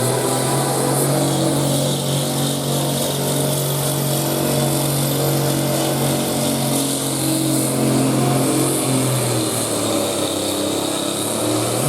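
Farm pulling tractor's engine running hard at steady high revs during a pull. The tone eases briefly near the end and then comes back.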